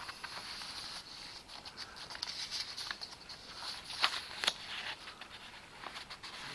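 Light rustling and scattered small clicks of someone handling things at a desk, with a couple of sharper clicks about four seconds in.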